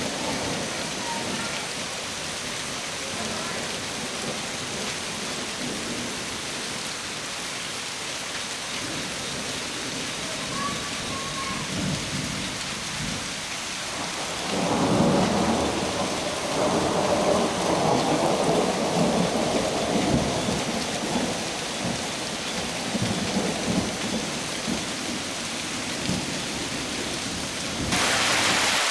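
Steady rain falling in a thunderstorm, with a long rolling rumble of thunder through the middle. Near the end the rain hiss suddenly grows louder.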